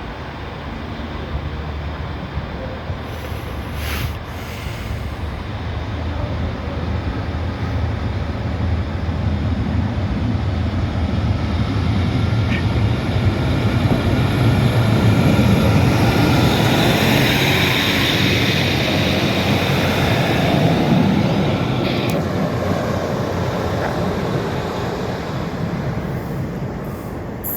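A train running along the line, growing louder to a peak about halfway through and then fading, with a rumble underneath and a thin high whine over it.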